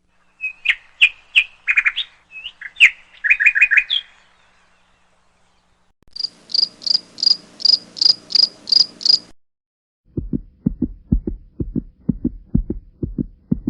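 Bird-like chirping for the first few seconds. After a short gap come about ten quick, evenly spaced high chirps like an insect's, then a run of low, regular thumps, about three a second.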